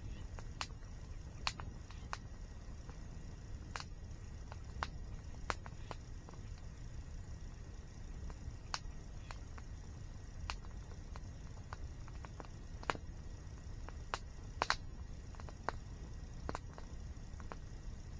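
Wood fire crackling, with irregular sharp pops a second or two apart and a cluster of louder pops about three-quarters of the way through, over the steady low rush of a waterfall.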